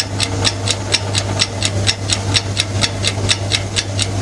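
Countdown timer sound effect: a fast, even clock-like ticking, about seven ticks a second, over a steady low hum, marking the time allowed to find the odd emoji.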